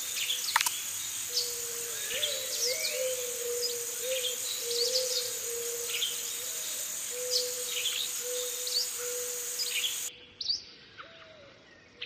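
Several birds chirping, with many short high calls over a steady high-pitched hiss. About ten seconds in, the hiss cuts off and the sound drops to a quieter background with a few more chirps.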